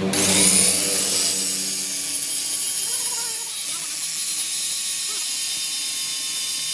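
A power tool starts suddenly and runs steadily, giving a loud, mostly high-pitched noise with a faint steady tone.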